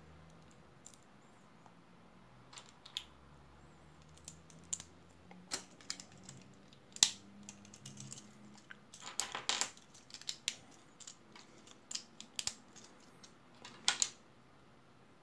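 Plastic LEGO bricks being handled and pressed together, clicking and snapping in irregular short ticks. A quick run of clicks comes about nine seconds in, and the sharpest snaps come about seven and fourteen seconds in.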